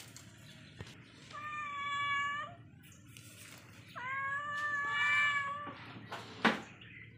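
Young cat meowing: two long, drawn-out meows a couple of seconds apart. A single sharp click follows near the end.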